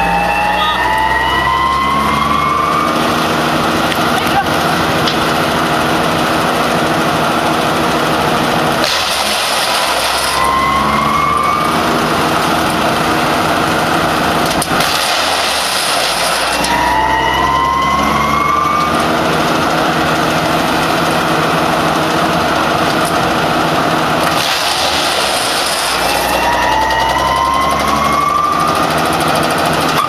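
Electric-motor disc wood chipper running and chipping logs. A harsh burst of chipping comes every several seconds, each followed by a rising whine as the machine speeds back up.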